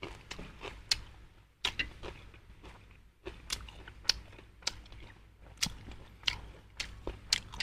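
A person chewing goat offal close to a clip-on microphone, with irregular wet mouth clicks about once or twice a second.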